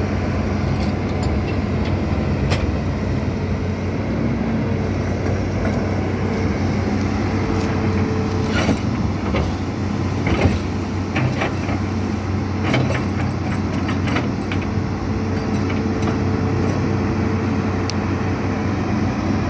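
Diesel engine of an amphibious excavator running steadily, with a few sharp knocks about nine and ten and a half seconds in.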